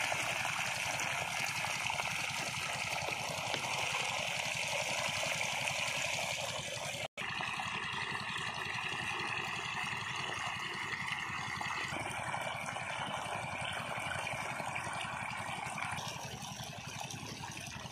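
Pumped water gushing out of the open end of a plastic irrigation pipe fed by a diesel pump set, splashing into a muddy field channel with a steady rushing sound. The sound drops out for an instant about seven seconds in.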